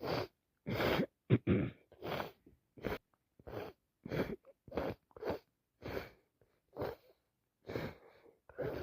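A woman with a heavy head cold sneezing and sniffing in a rapid run, a dozen or so short bursts about two-thirds of a second apart, the loudest about a second in.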